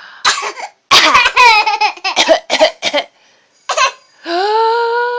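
A pet's silly coughing fit: a quick string of hacking coughs and chuckling noises, then after a short pause a single long, steady whining note.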